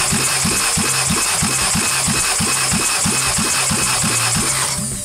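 Hyundai G4FC 1.6-litre four-cylinder engine being cranked by its starter motor for a compression test on cylinder 1, without firing. It has an even chugging beat of about four to five compression strokes a second and stops shortly before the end. The gauge reaches 12.5 kg/cm² on this cylinder.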